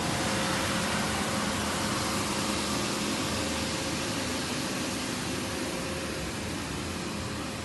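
Electric inflatable blower running steadily, a rush of air with a faint steady hum as it keeps the slide inflated. It grows slightly quieter toward the end.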